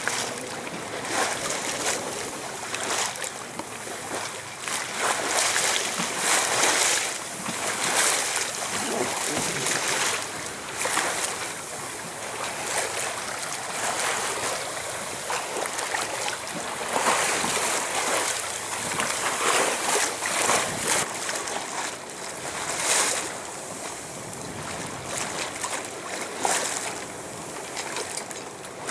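Sea water rushing and splashing along a sailboat's hull as it sails, with wind gusting over the microphone. The sound is an uneven hiss that swells and fades every second or two.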